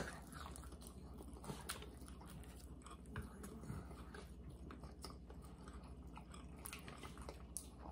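Faint chewing and biting on baby back barbecue pork ribs, with scattered small irregular clicks and mouth sounds. There is one sharp click right at the start.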